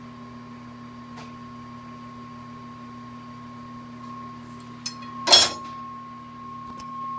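Steady electric hum of a South Bend 10 lathe's motor and drive running. A short, sharp metallic clatter a little past five seconds in is the loudest sound, with a few faint clicks around it.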